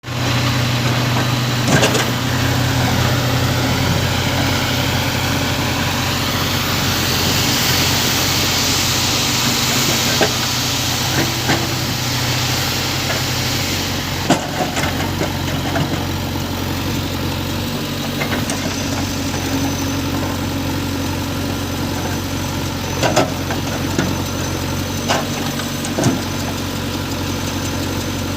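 Diesel engine of a JCB 3DX backhoe loader running steadily, with a few sharp knocks scattered through and a hiss that swells and fades in the middle.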